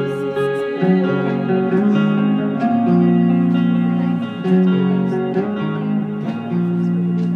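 Live rock band instrumental passage led by electric guitar, playing held notes that change every half second or so, with no vocals.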